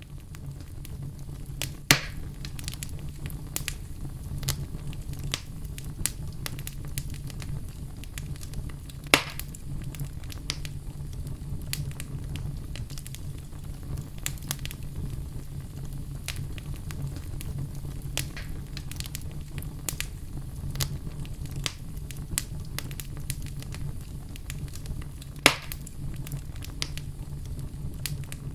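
Fireplace fire burning with steady crackling over a low rumble, broken by three loud sharp pops: one near the start, one about a third of the way in, and one near the end.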